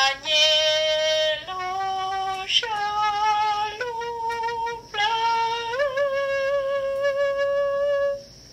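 A woman singing a slow, unaccompanied-sounding melody, holding each note for a second or more. The last note is held for about two and a half seconds and breaks off shortly before the end.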